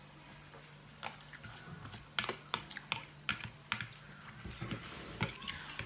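A metal fork clicking and scraping against a dish of salad: a quick, irregular run of sharp clicks starting about a second in, over a faint steady hum.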